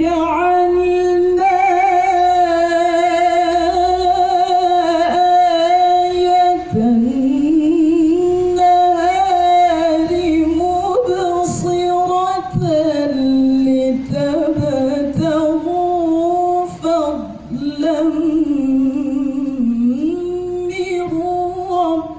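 A woman reciting the Quran in the melodic tilawah style, amplified through a microphone. One long held, wavering note runs for about the first six and a half seconds, then the line drops lower and goes on in ornamented turns before the phrase trails off near the end.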